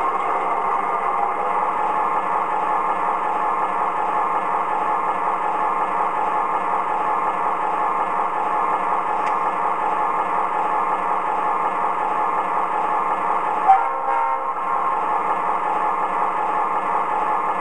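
O-scale MTH Premier GP40 model locomotive's onboard sound system playing a steady diesel idle through its small speaker, with the loco standing still. A click and a brief dip in the sound come near the end.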